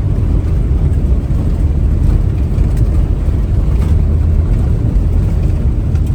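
Heavy diesel farm machine running, a loud steady low rumble that cuts off suddenly near the end.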